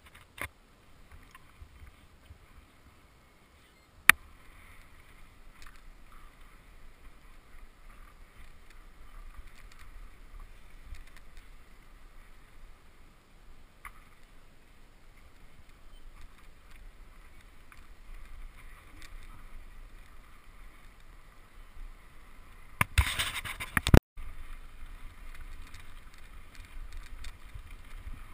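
Bicycle riding on a gravel path, giving steady rolling and rattling noise. There is a sharp click about four seconds in, and a louder rough burst a few seconds before the end that cuts off abruptly.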